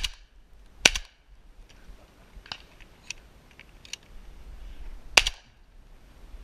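Shotgun fired at doves: two quick shots under a second apart, then a third about four seconds later. Fainter clicks fall in between.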